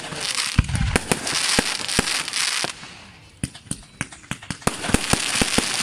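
Aerial fireworks going off: a rapid string of sharp bangs over a dense crackling hiss, the crackle easing about three seconds in and building again near the end.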